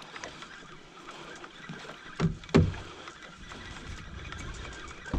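Small boat at sea, with the steady wash of water and wind around it, and two heavy thumps close together a little over two seconds in.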